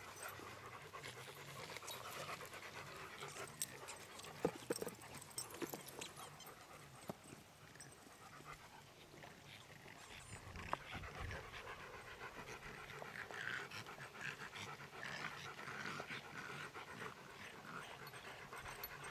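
Dog panting, with a few scattered knocks.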